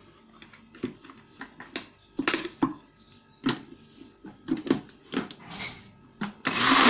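A few scattered clicks and knocks, then about six and a half seconds in a Moulinex food processor motor starts with a loud, steady whirr as it grinds biscuits into crumbs.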